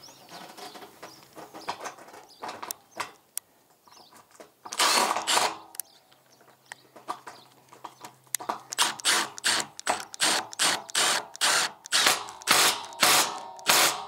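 Cordless power drill run in short bursts while fixing a curved bullnose iron verandah sheet: one longer run about five seconds in, then a quick series of short bursts, about two a second, through the last five seconds.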